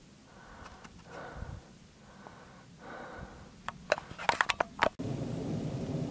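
Footsteps swishing through grass about once a second, then a quick run of sharp clicks about four seconds in. After a sudden change about five seconds in, a steady low rumbling noise takes over.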